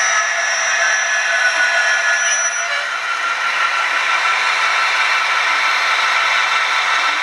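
ESU LokSound sound decoder in an HO-scale DB class 218 diesel locomotive model (ESU Engineering Edition) playing its diesel engine running sound through the model's small speaker: a steady, thin, hissing drone with no bass and a few steady tones. A high whistle in it stops about two and a half seconds in.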